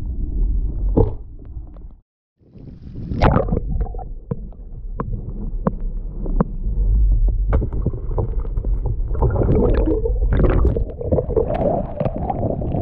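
Muffled underwater sound of disturbed shallow water: a low rumble scattered with knocks and clicks, which cuts out for a moment about two seconds in, then sloshing and splashing that builds near the end.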